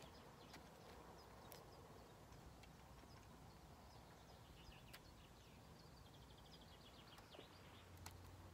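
Near silence: faint outdoor ambience with light high-pitched chirps and a few sharp clicks.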